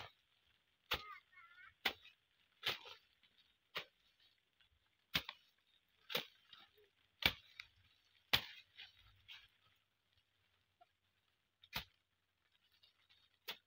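Jembe hand hoe chopping into wet soil and grass while weeding: sharp strikes roughly once a second in an uneven rhythm, with a pause of a few seconds before the last two strikes near the end.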